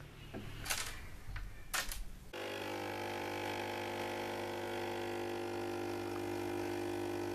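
Two brief swishes, then about two seconds in an espresso machine's pump starts with a sudden, steady buzzing hum as coffee pours into the cup.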